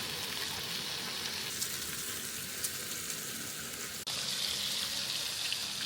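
Food frying in a pan, a steady sizzle with scattered small crackles. It breaks off for an instant about four seconds in and resumes brighter.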